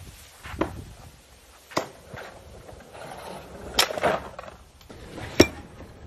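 Thrown knives striking wooden targets: four or five sharp knocks, a second or two apart.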